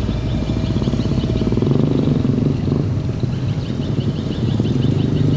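Heavy dump truck's diesel engine running steadily, with dense even firing pulses, while its hydraulic hoist tips the loaded bed. Birds chirp in quick repeated calls above it, mostly in the second half.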